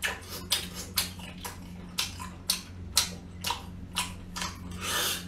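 Lips sucking hard at a small spicy sea snail shell to draw out the meat and roe: a quick run of short wet smacks, two or three a second, ending in a longer sucking slurp near the end. The roe stays stuck in the shell.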